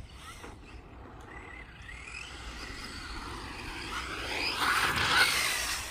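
Electric radio-controlled car driving on a dirt track, its motor whine rising and falling in pitch as the throttle changes. It grows louder toward the end as the car comes close, peaking about five seconds in with a rush of noise, then eases off.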